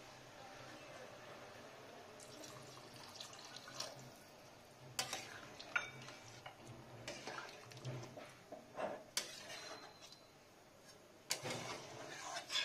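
Water being added to a pan of peas, potatoes and minced mutton and stirred in with a spatula. About five seconds in, the spatula starts knocking and scraping against the pan several times.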